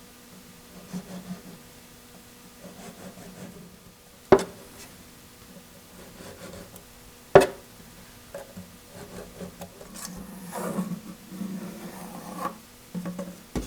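A drawer slide being handled and positioned against the wooden cabinet: scuffing and rubbing, with two sharp knocks about three seconds apart.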